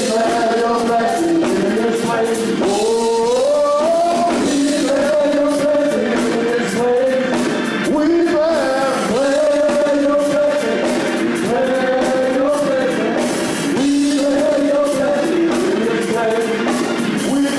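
Praise and worship music: voices singing a melodic line over a band, with a steady beat of drums and cymbals.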